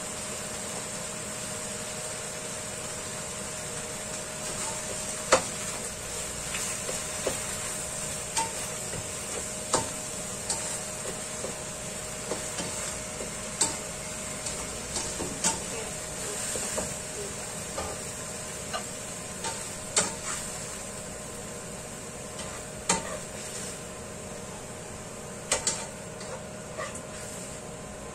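Chopped leafy greens sizzling in a frying pan while a spatula stirs them, with irregular sharp clacks of the spatula against the pan every second or two over a steady hum.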